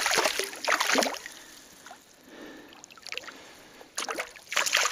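A hooked trout thrashing and splashing at the surface beside a landing net. The splashing dies down after about a second, then breaks out again loudly about four seconds in.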